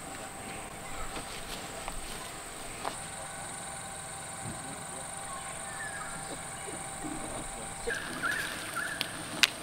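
Outdoor ambience with a continuous high-pitched insect drone, joined near the end by a few short bird chirps and occasional soft clicks.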